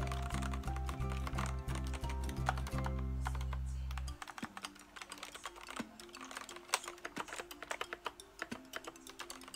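Fast typing on an SVIVE Triton TKL mechanical keyboard: a quick run of sharp key clicks throughout. Background music plays underneath, and its heavy bass drops away about four seconds in.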